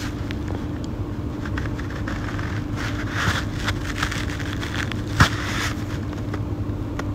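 Steady low hum of room background noise, with faint clicks and rustles from the phone being handled and one sharp knock about five seconds in.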